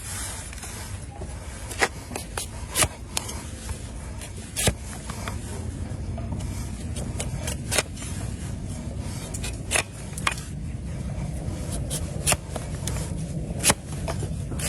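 Shovel blade paring and scraping a donkey's hoof: irregular sharp clicks and scrapes, the loudest a couple of seconds apart, over a steady low rumble.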